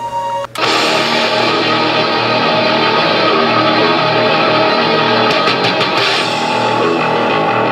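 Heavy metal soundtrack music with distorted guitar and drums, starting abruptly about half a second in.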